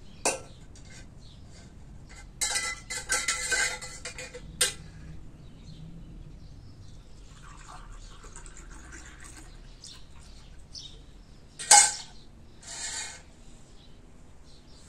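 Tableware being handled: a metal jug clinks as it is picked up, there is a stretch of clattering and rustling, then a faint pour of liquid from the jug into a glass, and a sharp clink about twelve seconds in as something is set down.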